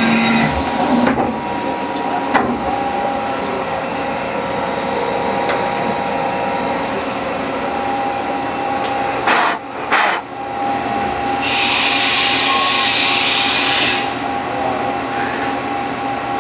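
CNC lathe running a machining cycle: a steady machine noise carrying constant whining tones, two short sharp sounds about nine and ten seconds in, and a steady hiss from about twelve to fourteen seconds in.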